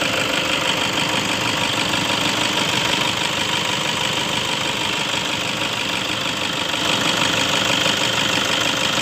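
Toyota Innova 2009's four-cylinder turbo-diesel engine idling steadily with its diesel clatter, heard from the open engine bay. The idle sounds normal, fairly smooth for a diesel, although the car shakes and stumbles when accelerated.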